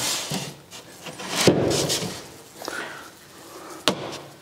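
A plasterboard panel scraping and knocking against the window reveal as it is pushed into place by hand, with a sharp knock near the end.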